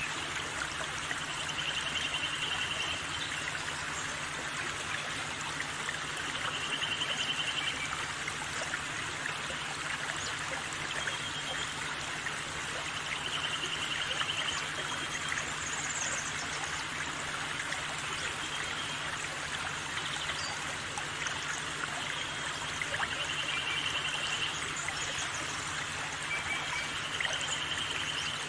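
Steady trickling of flowing water, with a short high trill repeating every few seconds.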